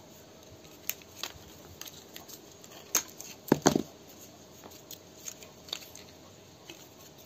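Small clicks and scrapes of a screwdriver working a self-tapping screw into a metal jar lid that holds a plastic lamp socket. A louder run of quick clicks comes about three and a half seconds in.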